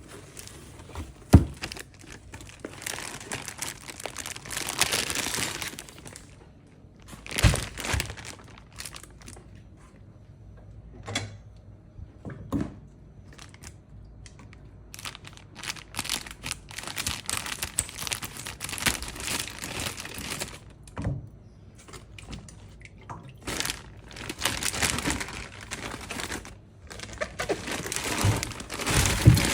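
Fruit and vegetables being handled on a kitchen counter: stretches of crinkling from bags or wrapping, broken by sharp knocks and thunks as items are set down, the loudest about a second in.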